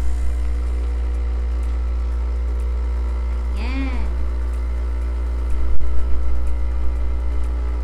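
Nescafé Dolce Gusto Mini Me capsule coffee machine's pump running with a loud, steady buzzing hum while it brews coffee into a mug. A sharp click is heard about six seconds in.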